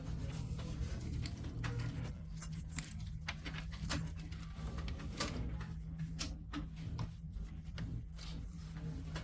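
Scattered small clicks and knocks of hands handling copier parts and connectors, over a steady low hum.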